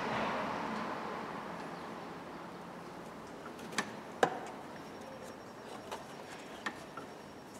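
A few sharp, separate metallic clicks and knocks from a ratchet with a long 17 mm socket being worked on a power-steering hose nut. A low steady hiss fades away over the first couple of seconds.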